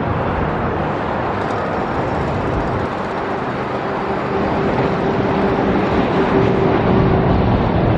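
Steady noise of road vehicles going by, with a steady engine hum that starts about two and a half seconds in and fades out a few seconds later.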